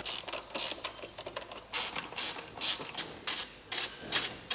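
Hand ratchet wrench clicking through repeated short strokes, about two a second, as a fastener is turned.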